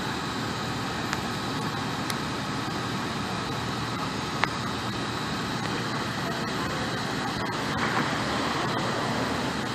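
Steady road-traffic noise, with a few faint clicks.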